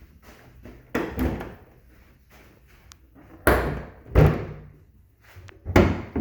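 A run of heavy thumps and bangs, five in all, with the loudest two in the middle and each dying away briefly: car body panels being shut.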